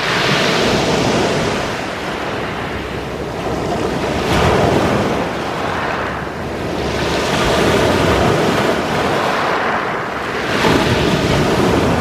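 Sea waves breaking and washing up a pebble beach, the surf hissing and foaming in rising and falling surges about every three seconds.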